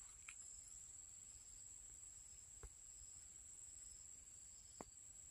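Faint steady high-pitched insect trilling, with a softer pulsing chirp beneath it and a few faint clicks.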